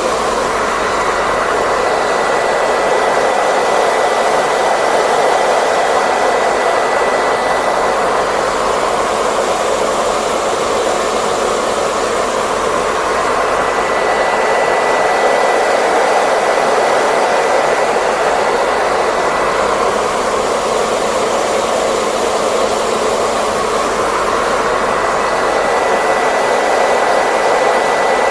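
Hair dryer running steadily: a continuous rush of blown air with a faint thin whine above it, swelling and easing gently every several seconds.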